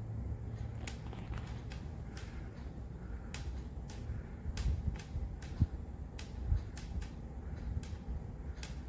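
Handling noise: scattered light clicks and a few soft knocks over a steady low rumble, with the louder knocks bunched toward the middle.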